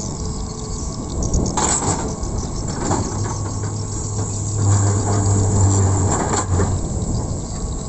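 Hitachi hydraulic excavator's diesel engine running, its note growing steadier and louder from about three seconds in as it works the boom and bucket. A few sharp knocks come from the bucket and linkage along the way.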